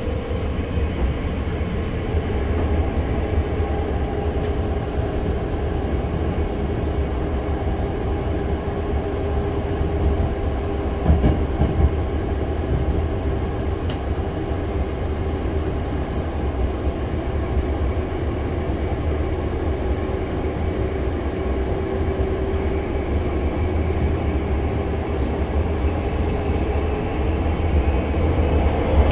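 Running sound inside a Hankyu 6300 series electric train car at speed: a steady rumble of wheels on rail with a humming tone that dips slightly in pitch and rises again near the end. There are a couple of short knocks about eleven seconds in.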